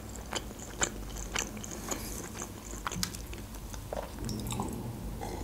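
Close-miked chewing and wet mouth clicks, a few sharp clicks a second. Near the end come softer, lower sounds of sipping and swallowing from a glass.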